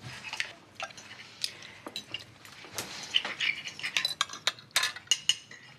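Knives and forks clinking and tapping on china plates as several people eat: irregular sharp clinks, some ringing briefly.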